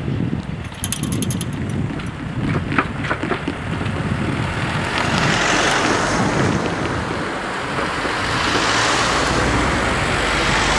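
Cars driving one after another over a level crossing, tyres knocking over the rails a few times about two to three seconds in, with wind buffeting the microphone. The tyre and engine noise grows louder in the second half as a car comes close.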